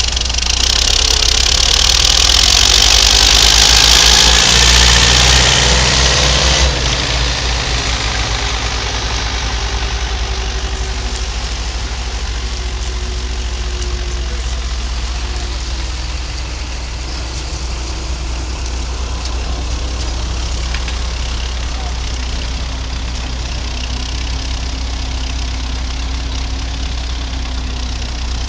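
Farm machinery's diesel engine running steadily at a low drone. A loud hiss rides over it for the first several seconds and cuts off suddenly about seven seconds in.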